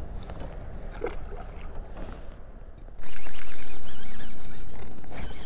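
Baitcasting reel's spool spinning as a cast pays out line: it starts suddenly about three seconds in and fades gradually as the spool slows. Before it, only a faint wash of water and wind.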